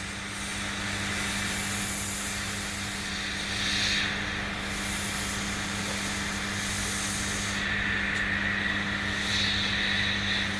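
Hot air rework gun blowing a steady hiss of hot air onto a graphics card's memory chips to melt their solder so they can be lifted off, over a constant low hum.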